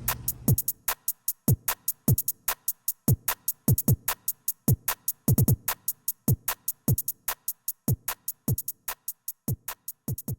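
Background music with an electronic drum-machine beat: deep kick drums that drop in pitch under quick hi-hat ticks, fading out near the end.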